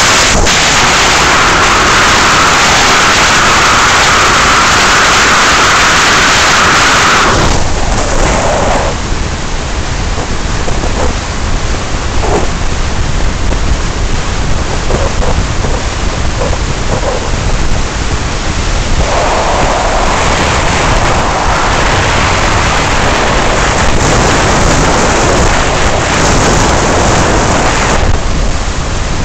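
Loud wind buffeting the microphone from an open convertible at highway speed, a steady rushing noise. It eases somewhat for a stretch in the middle and grows heavier again about two-thirds of the way through.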